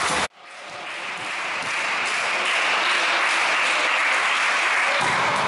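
Spectators applauding in a sports hall. The sound cuts out abruptly just after the start, fades back in over about two seconds, and then holds steady.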